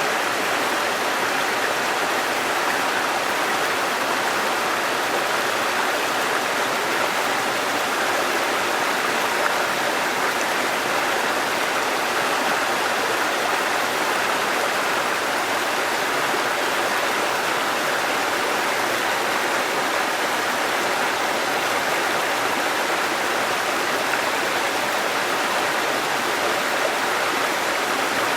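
Waterfall and rushing stream water, a steady, even splashing rush without changes.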